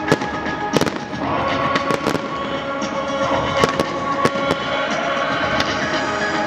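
Fireworks display going off: a continuous din of launches and bursts with about half a dozen sharp, irregularly spaced bangs from bursting shells. Music is playing underneath with held notes.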